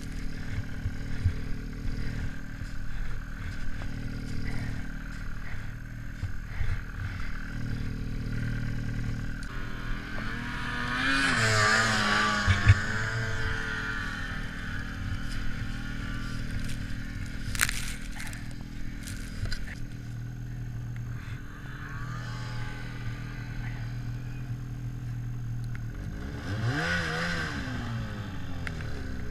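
Snowmobile engine idling while the sled sits stuck in deep powder, with scraping as snow is dug away by hand. The engine is revved up and down a little before halfway and again near the end as the sled gets moving.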